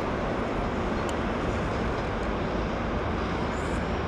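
Steady noise of road traffic, an even rumble with no distinct events.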